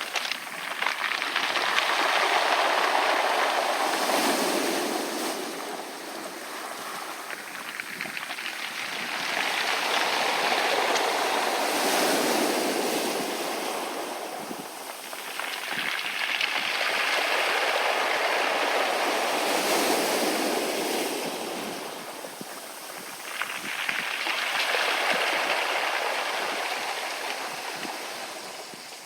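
Waves breaking on a beach of round pebbles, each wave washing up and drawing back through the stones with a hiss. Four slow surges come and go, about seven seconds apart.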